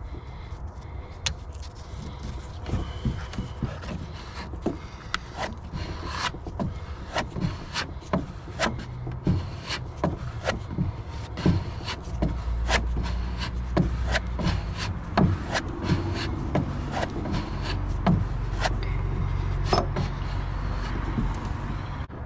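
Irregular clicks, taps and scraping of hand work at a boat's drain plug, handling the parts and two-part epoxy. A low rumble underneath grows louder about halfway through.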